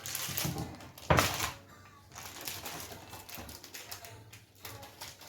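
Kitchen handling noises: a loud knock about a second in, then irregular rustling and clattering.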